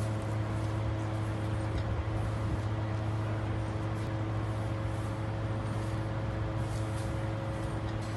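Steady low mechanical hum with faint steady tones above it, unchanging throughout.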